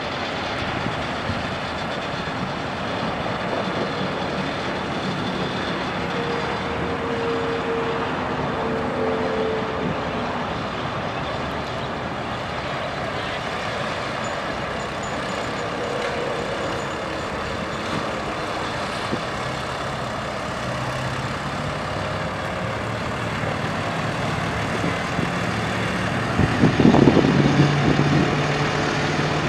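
A New Holland TS115A tractor's six-cylinder turbo diesel engine running steadily, briefly louder near the end.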